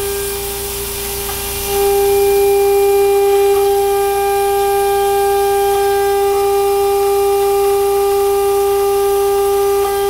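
A CNC router's high-speed ATC spindle whines steadily at about 24,000 rpm while a small milling cutter cuts aluminium, over a hiss of mist-coolant air. The whine gets louder about two seconds in and then holds steady.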